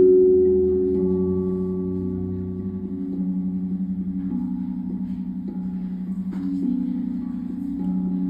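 Steel tongue drum struck with mallets, playing a slow sequence of low notes about one a second. Each note rings on and overlaps the next.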